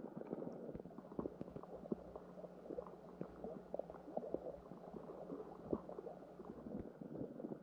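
Muffled underwater ambience of shallow lake water heard through a submerged camera: dense, irregular soft pops and gurgles over a faint steady low hum.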